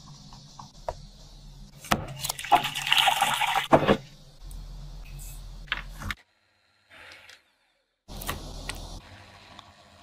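Thin batter poured through a fine stainless-steel sieve into a glass bowl: a splashing, trickling pour that begins about two seconds in and lasts about two seconds. After a brief silence, an electric hand mixer whips cream and sugar in a glass bowl, more softly.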